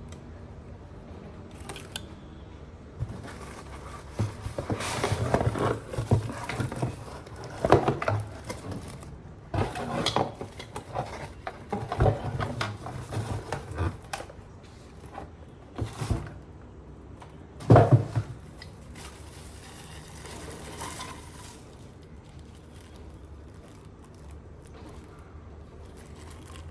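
Hard objects being handled, with irregular clatter and rustling and several sharp knocks; the loudest knock comes about 18 seconds in. It settles to a quieter background after about 22 seconds.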